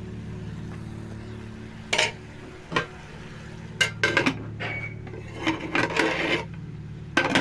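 Cooking pot and utensils handled: scattered clinks and knocks of metal cookware, a few at a time, over a steady low hum.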